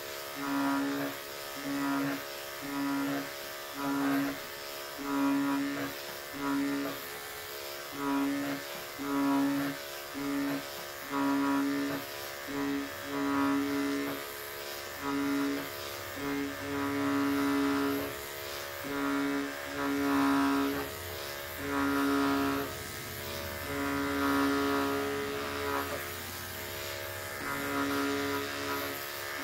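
Corded electric clippers running as they are pushed through short-pile faux fur, a steady pitched hum whose level rises and falls about once a second as the blades cut.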